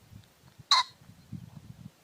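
Pheasant giving one short, loud call about three-quarters of a second in, over faint low rumbling.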